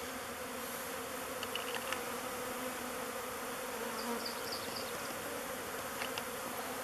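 Honeybee swarm buzzing in a steady, dense hum: an agitated extra swarm clustered outside a log hive, which the beekeeper thinks wanted to move in where another swarm has already settled.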